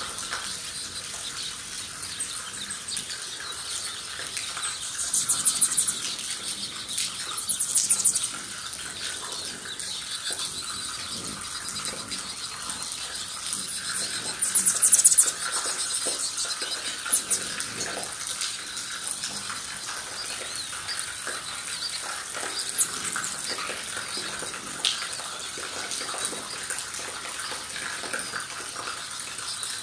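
Steady hiss of light rain, with hummingbirds buzzing and chittering in three short, louder high-pitched flurries.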